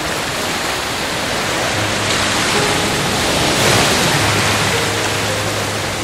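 Stormy sea waves breaking: a steady rushing wash of surf that swells to its loudest crash about three and a half seconds in, with faint held music notes underneath.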